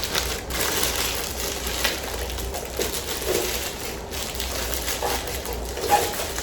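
Packaging rustling and crinkling as shower filter parts are unpacked and handled, with a few small irregular knocks.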